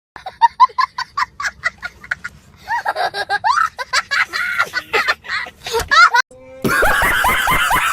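Comic sound-effect clips: a quick run of short high-pitched notes like giggling, then sliding voice-like calls, then a louder, denser stretch starting about two-thirds of the way through.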